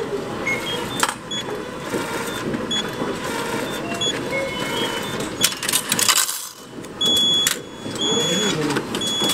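Railway ticket vending machine running its issuing mechanism, clicking and whirring as it feeds out a stack of coupon tickets one by one and then drops the change coins and a banknote into the tray, with short high beeps.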